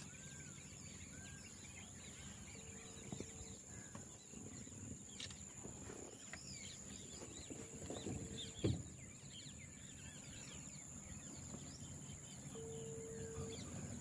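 Outdoor ambience of scattered small bird chirps and calls over a low rumble. A short level hoot-like tone comes three times about five seconds apart, a thin steady high whine sits in the background, and a single thump lands a little past halfway.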